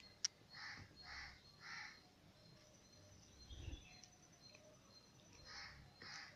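A bird calling twice, each time as three short calls in a row, one set about a second in and the other near the end. A single sharp click just after the start.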